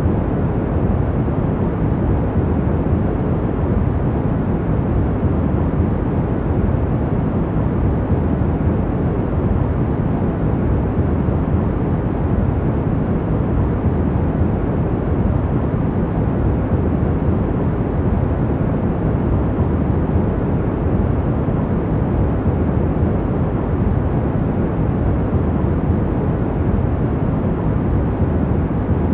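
Steady, deep noise for sleeping, an even hiss weighted toward the low end like brown noise, with no changes.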